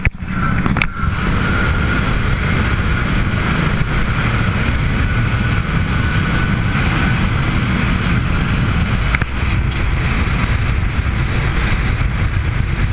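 Twin 350 Mag V8 engines of a 1988 Baja Force 265 speedboat running hard at over 60 mph, heard with wind buffeting the microphone and water rushing past the hull. The noise is loud and steady, with a brief knock about a second in and another about nine seconds in.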